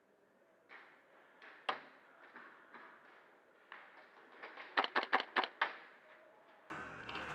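Scattered light clicks and knocks, then a quick run of about six sharp clicks a little under five seconds in.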